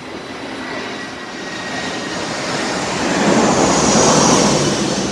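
Jet airliner passing low overhead: the engine noise swells steadily and is loudest about three to four seconds in, with a thin high whine over it.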